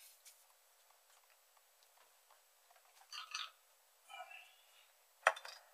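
Small handling noises at a repair bench: a sharp click at the start, two short scratchy rustles about three and four seconds in, and a louder sharp click near the end.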